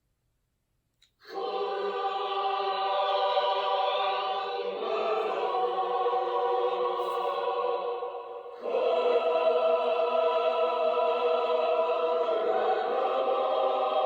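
Choir and orchestra music clip played from a lightsaber's Proffie sound board speaker, thin with little bass. It starts about a second in with long held chords that change twice.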